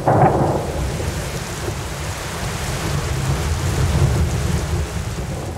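Thunderstorm: a thunderclap right at the start that rolls on into a long low rumble, over steady rain.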